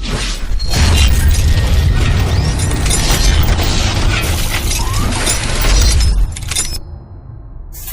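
A loud, dense crashing and shattering sound, like breaking glass, with music and heavy bass underneath; it dies down about six seconds in.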